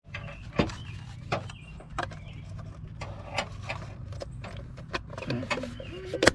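Scattered sharp metallic clicks and knocks of hand tools working on the car's wheel, over a steady low hum.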